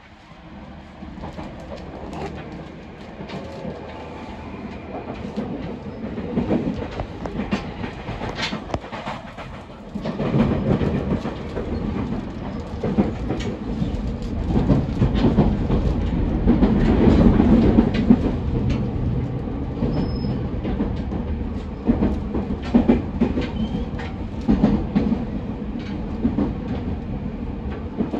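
Running sound inside a JR East 209 series 2100-subseries electric commuter car: the noise builds over the first few seconds as the train gets under way. It then runs at speed with a steady rumble and wheels clicking over rail joints.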